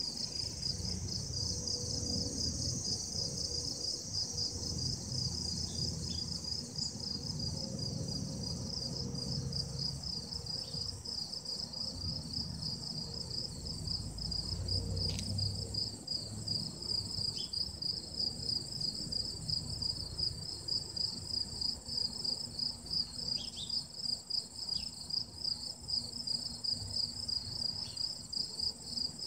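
Insects chirping in a steady chorus: a high, fast pulsing chirp that repeats several times a second, over a fainter continuous high hum.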